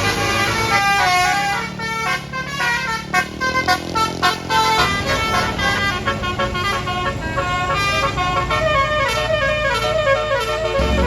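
Bus 'telolet basuri' multi-trumpet musical horn playing a quick tune of short stepped notes, over the low running of the bus engine, which grows louder near the end.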